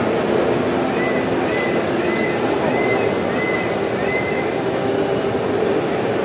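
Steady crowd hubbub and hall din in a large, busy exhibition hall, with no clear words. A faint short high chirp repeats about every two-thirds of a second from about a second in until past the middle.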